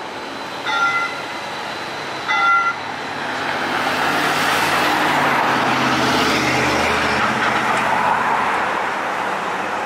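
Two short vehicle horn toots about a second and a half apart, then road traffic passing, swelling with a low engine hum and easing off near the end.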